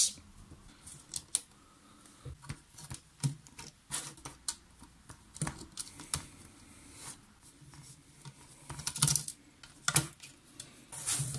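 Light, scattered clicks and scrapes of a small screwdriver backing screws out of small circuit boards on a cassette recorder's plastic front panel, and of the boards being handled. A few sharper clicks come near the end.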